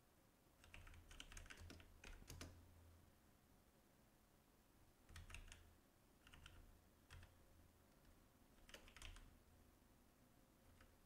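Faint computer-keyboard typing: short runs of keystrokes with pauses between them, the clearest runs about a second in, around the middle and near the end.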